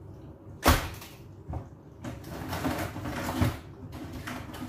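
Crabs being handled in a plastic bucket: a sharp knock about half a second in, a lighter one a second later, then shells scraping and rustling against the plastic with another knock near the end.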